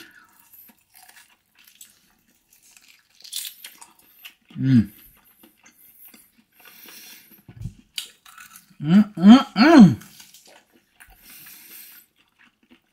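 Eating ribs: quiet chewing with small crunches and clicks. There is a short hum about halfway through, then three louder hums in quick succession near the end.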